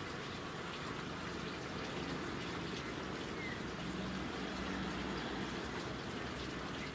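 Steady running and splashing of water in a backyard recirculating fish-farm system of tanks, filter barrels and plumbing.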